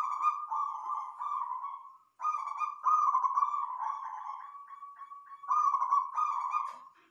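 Zebra dove (perkutut) cooing: a run of rapid, trilled coos that breaks off briefly about two seconds in, then resumes.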